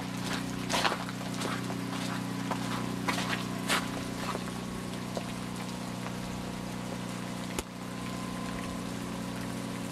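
Irregular crackling and crunching of ice, dense in the first few seconds and sparse after, over a steady low hum.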